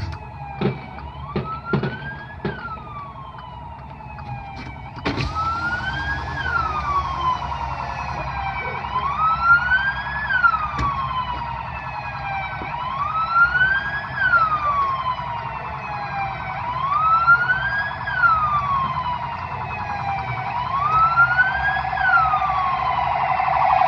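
Police car siren wailing in slow rising and falling sweeps, one about every three and a half seconds, louder near the end. Several sharp bangs sound in the first five seconds, the loudest at about five seconds in.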